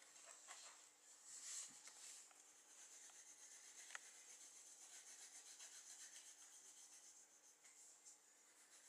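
Near silence, with faint soft rubbing and a single light click about four seconds in.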